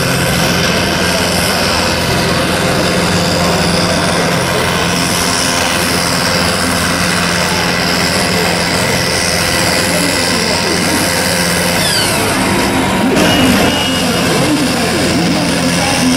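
Farm tractor's diesel engine running hard at high, steady revs under full load while pulling a tractor-pull sled. The note holds steady, with a small change in pitch about thirteen seconds in.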